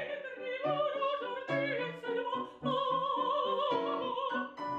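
Operatic soprano singing a phrase of several held notes with vibrato, accompanied by a Seiler grand piano.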